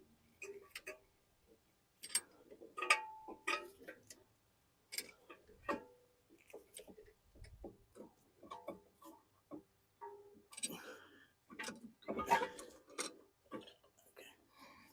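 Irregular light metallic clicks and knocks with a few short squeaks as a C-clamp is screwed down on an old brake pad, pressing the brake caliper piston back into its bore.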